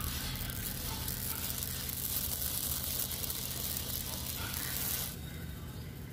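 Amaranth seeds crackling with dense, tiny pops as they dry-roast in a large metal kadhai, stirred with a cotton cloth rubbing over the pan, the sign that the seeds are puffing. It stops suddenly about five seconds in.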